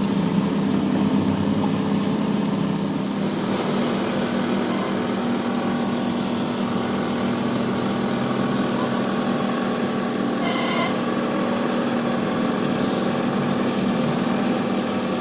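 A small engine running steadily, a constant hum. About ten seconds in comes a brief high-pitched sound.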